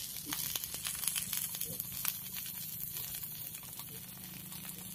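Tilapia on a banana leaf sizzling in an oiled grill pan over a portable gas stove: a steady high crackle with many small quick pops.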